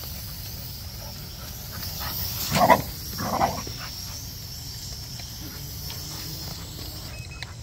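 A dog barks twice in quick succession about two and a half seconds in, over the steady high whine of a small quadcopter drone's propellers.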